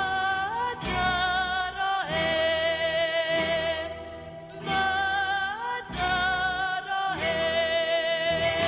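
A woman singing a slow song in long held notes with a wavering vibrato, over an instrumental accompaniment.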